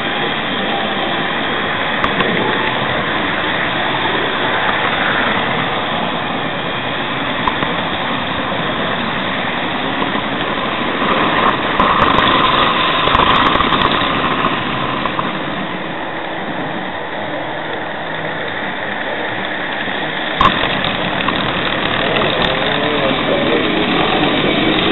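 A Märklin-Hamo H0 model train running on layout track, heard from the camera car riding with it: a steady rolling rumble of wheels and motor. A brighter whine comes in around the middle, there are a few sharp clicks, and one stronger knock comes about 20 seconds in.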